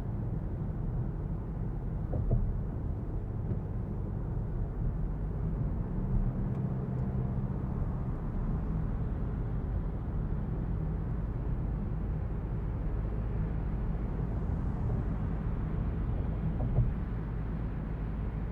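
A 2023 Citroen C5 Aircross with a 1.5 diesel engine on the move: a steady low drone of engine and road noise, with three short light thumps.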